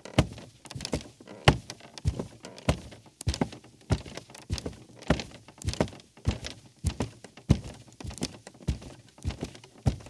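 A barefoot man walking on a creaky rug: steady footsteps, a little under two a second, each a soft thud with creaking between them.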